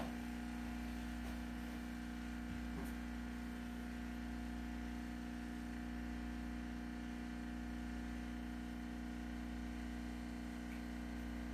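Steady electrical hum made of several even low tones over a faint hiss, with a faint knock or two about two and a half seconds in.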